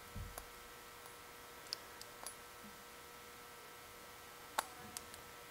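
Quiet, with a few light, scattered clicks of small metal parts as a piston ring is worked into its groove on a turbocharger turbine shaft. The plainest click comes about four and a half seconds in, over a steady faint hum.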